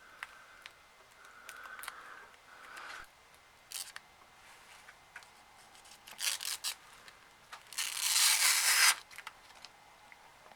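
Small handling clicks and short scratchy noises from hands-on work on a 3DS XL screen assembly, with the loudest a scratchy noise lasting about a second near the end.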